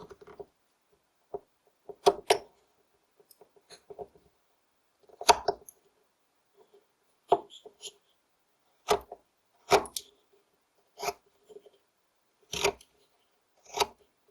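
Carving knife slicing basswood in a string of separate cuts, about eight short crisp strokes one to two seconds apart, some of them doubled.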